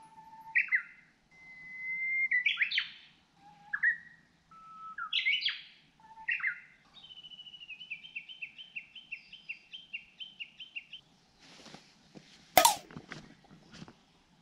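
Wild birds singing: several separate whistled phrases, then a fast run of repeated notes, about three a second for some four seconds. A single sharp click or knock near the end is the loudest sound.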